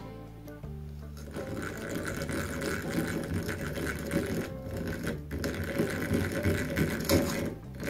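Homemade miniature hand drill with brass gears cranked fast: a dense, rapid mechanical whirr with a faint steady tone. It starts about a second in, falters briefly twice, and stops abruptly near the end.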